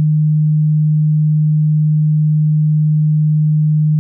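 A steady, loud, low pure tone: a single synthesized sine wave held at one pitch without change, played as the legendary 'brown note' said to make listeners lose control of their bowels.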